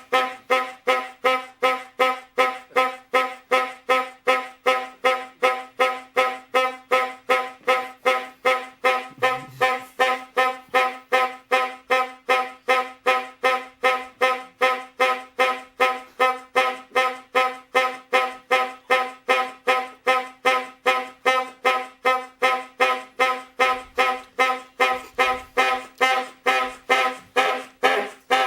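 A horn honking over and over in short, evenly spaced blasts, about two to three a second, every honk at the same pitch.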